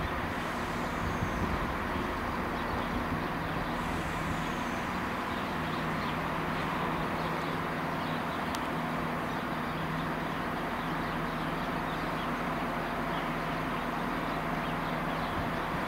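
Class 170 Turbostar diesel multiple unit's underfloor diesel engines running with a steady hum as the train approaches slowly round a curve.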